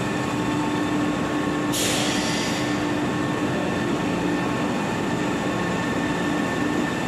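Electric floor-cleaning machine running with a steady hum and constant whining tones, with a brief hiss about two seconds in.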